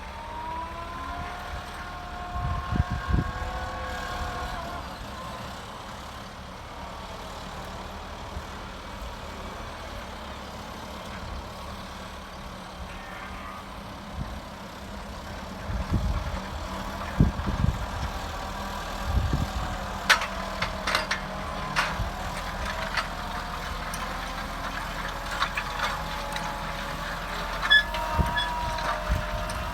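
Tractor engine running while ploughing stubble, its note shifting up and down, with low thumps and sharp clatters that come mostly in the second half.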